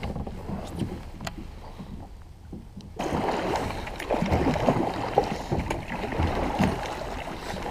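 Water slapping and splashing against a kayak's hull as it moves through choppy water. It starts suddenly about three seconds in; before that there is only a low, steady rush with a few faint clicks.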